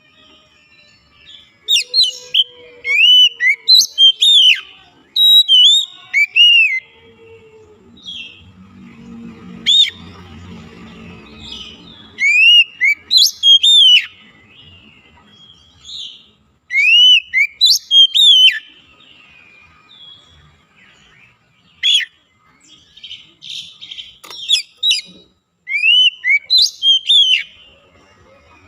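Oriental magpie-robin (kacer) singing: loud clusters of whistled notes that sweep up and down, broken by short pauses of a second or two.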